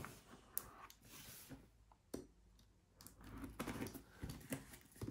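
Faint handling noise: scattered light clicks and scratches of a knife and fingers working at a plastic-wrapped cardboard box.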